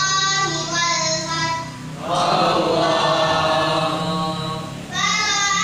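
A boy chanting Qur'an recitation in long, held melodic phrases. For about three seconds in the middle a fuller, choir-like blend of voices takes over, and his single voice returns near the end.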